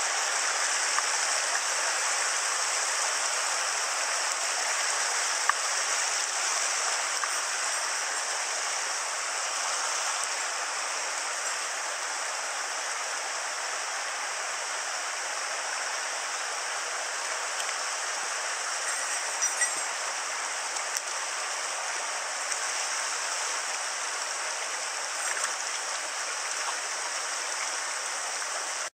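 Mountain headwater stream running over rocks and small cascades: a steady, even rush of water, with a few faint clicks.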